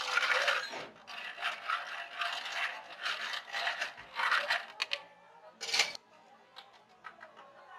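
Ice cubes clattering into a plastic blender cup, then a metal bar spoon stirring the ice and syrup, rattling in quick uneven strokes for several seconds. A sharper clatter follows about six seconds in, then a few light clinks.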